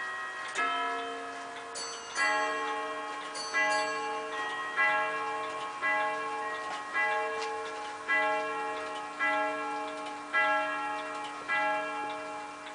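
Gustav Becker three-weight Vienna regulator striking its grand sonnerie on rod gongs: about ten evenly spaced strokes, roughly one a second, each note ringing on until the next, over the steady tick of the clock.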